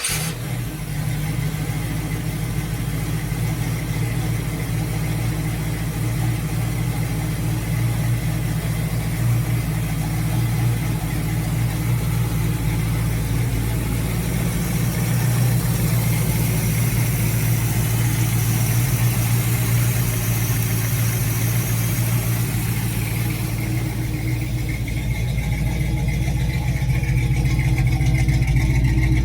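Old Chevy engine on a Quick Fuel Brawler four-barrel carburetor, just fired up and idling steadily.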